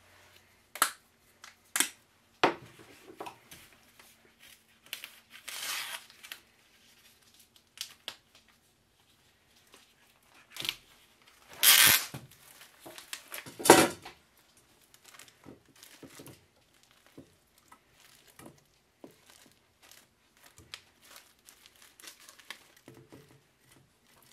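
Plastic film and a foam meat tray crinkling and rustling in short, irregular bursts as raw chicken is unwrapped and handled, loudest about halfway through.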